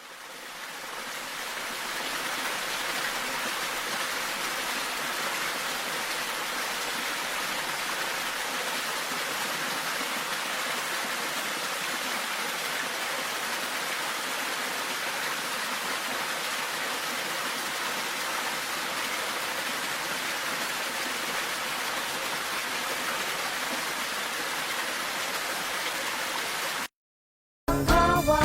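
Steady heavy rain falling in a thunderstorm, fading in over the first couple of seconds, with no thunder rumble heard. It cuts off suddenly near the end, and after a brief silence music begins.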